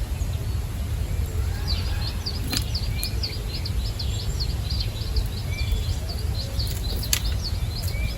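A small songbird calling in a rapid, even series of short high notes, about five a second, starting about two seconds in, over a steady low rumble and a few sharp clicks.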